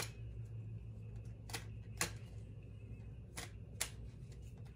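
Tarot cards being handled and laid on a tabletop: about five short, sharp card taps and clicks spread over four seconds.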